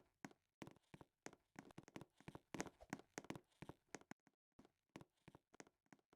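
Faint, irregular taps and clicks, several a second, with short gaps of dead silence between clusters.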